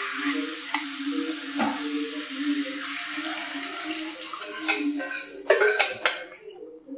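Boiled dal being scooped and poured from a steel pot into a kadai of fried vegetables, a steady wet splashing hiss. Near the end come several sharp metallic clanks of the ladle against the pot, and then the pouring stops.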